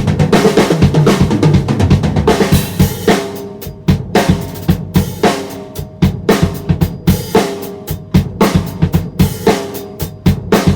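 Premier APK acoustic drum kit being played in a busy pattern of kick drum and snare hits, with ringing tom strokes and sharp strikes throughout.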